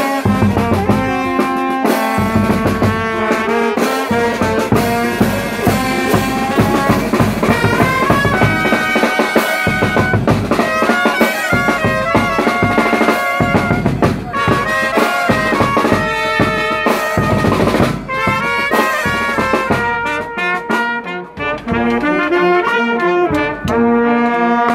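Brass band music: trumpets and trombones playing a melody over a drum beat, the drums thinning out near the end.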